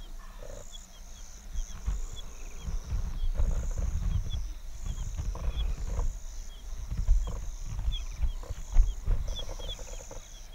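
A pack of African wild dogs at play, with irregular low growls and scuffling, the loudest peaks near the end, and short high chirps repeating throughout. Insects trill steadily behind.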